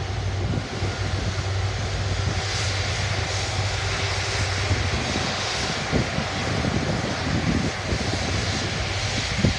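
Airbus A330 airliner's jet engines running steadily at low taxi thrust as the aircraft rolls slowly past. Wind buffets the microphone in the second half.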